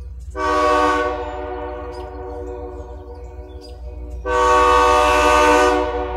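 Diesel locomotive air horn sounding two blasts for a grade crossing: a short one about half a second in and a longer one about four seconds in. A steady low rumble runs underneath.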